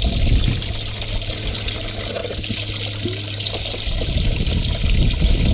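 Water pouring and trickling into a boat's livewell as it fills, with a steady low hum that stops about four seconds in.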